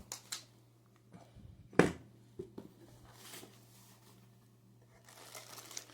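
Scattered knocks and clicks of objects being handled, with one sharper knock about two seconds in, over a steady low hum.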